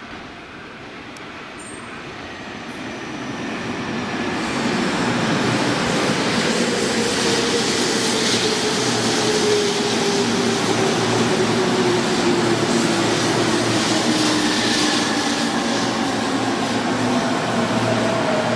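Tobu Tojo Line electric train approaching, growing louder over the first five seconds and then running loud and steady, with a whine that falls slowly in pitch as the train slows.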